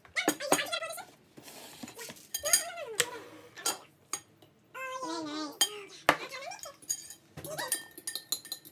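A spoon clinking against a glass mixing bowl and glass measuring cups as cake batter is poured and stirred, in scattered sharp knocks, with children's voices in between.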